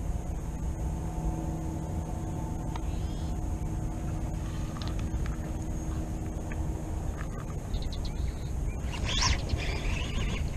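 Wind rumbling on the microphone, with a steady low hum under it that fades out about midway. A few light clicks, then a short rustle near the end.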